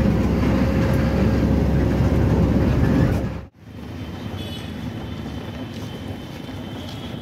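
Low rumble of a moving vehicle heard from inside it, loud at first; it cuts off abruptly about three and a half seconds in and gives way to a quieter, steady road noise with faint high tones.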